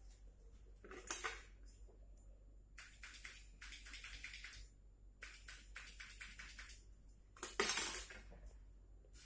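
Metal tray and cupping gear clinking and rattling as they are handled, in runs of quick clicks, with the loudest clatter near the end.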